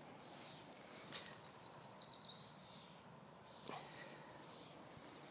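A bird calling: a quick run of about seven short, high, falling chirps lasting about a second, over faint outdoor ambience, with a single soft click a little later.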